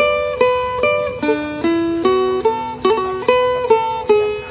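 Plucked-string instrumental music: a bright lute picks a quick melody, about two or three notes a second, over held ringing drone notes.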